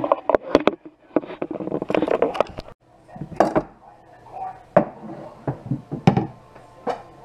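Kitchen handling noises: a wooden cutting board, knife and bowls being picked up and set down on a countertop, giving a scattered series of sharp knocks and clacks.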